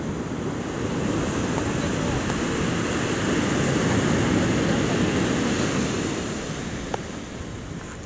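Sea surf washing onto the shore: the rush of a wave swells over the first few seconds, then fades away toward the end.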